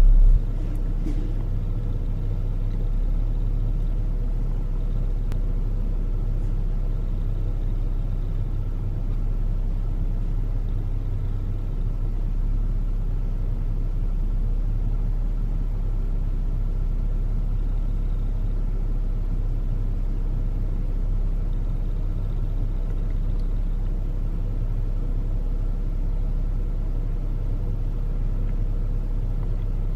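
A car engine running steadily with a low, even rumble and a faint constant hum above it, after a brief louder burst at the very start.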